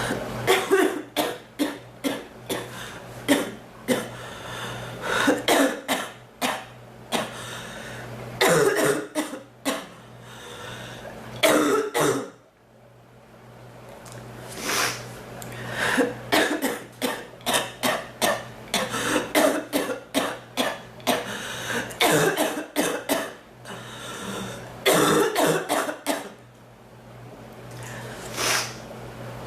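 A woman coughing in repeated fits, each a run of several quick coughs, with short pauses between the fits and a longer lull about halfway through.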